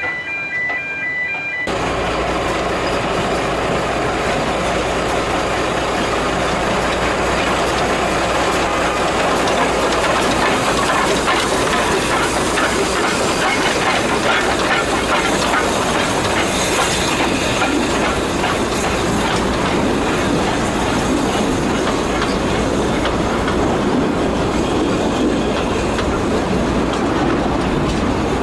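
Narrow-gauge steam train passing close by, locomotive and then carriages, with a steady rolling rumble and the clickety-clack of wheels on the rails. The sound jumps in suddenly about two seconds in and then stays loud.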